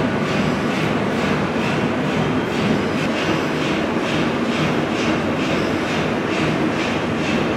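Tea-processing machinery running: conveyor belts, leaf-cutting machines and shaking sifting trays. They make a steady, loud mechanical clatter with a regular beat of about three a second.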